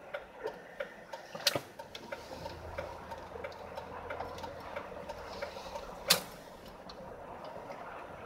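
Car driving slowly on a slushy, snow-covered road, heard from inside: a steady low tyre and road noise with many small irregular clicks and taps, and two sharper clicks about one and a half and six seconds in.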